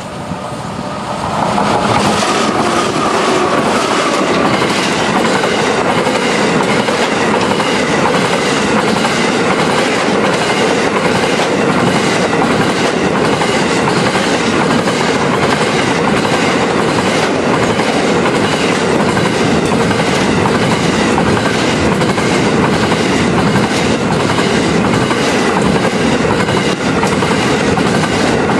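Grain train passing close by. The diesel locomotive arrives about a second and a half in and the sound loudens sharply. A long string of grain hopper wagons then rolls past with steady wheel-on-rail noise and a regular clickety-clack of wheels over rail joints.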